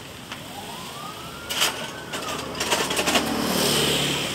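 A siren wailing in slow rising and falling sweeps. Over it come several sharp knocks and a clatter about halfway through, typical of metal table-leg parts being handled during assembly.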